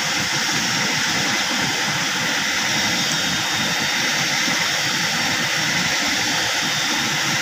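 Swift river current rushing steadily over rapids, an even, unbroken noise of moving water.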